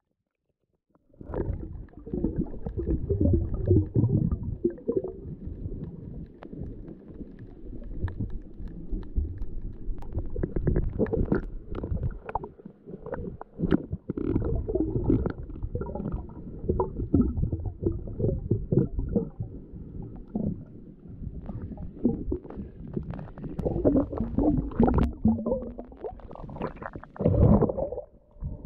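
Muffled underwater sound picked up by a camera held below the surface: low, uneven sloshing and gurgling of water with scattered knocks, starting about a second in.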